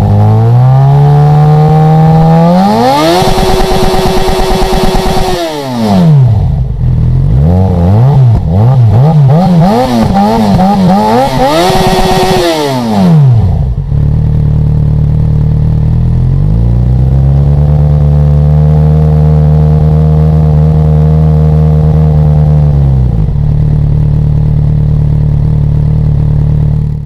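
Yamaha XJ6's 600 cc inline-four revving on the stand through an IXIL SX1 stainless underbody exhaust with the dB killer removed. It climbs to a held high rev, gives a run of quick throttle blips, climbs to a high hold again, then settles to idle, holds steady mid revs for several seconds and drops back to idle near the end.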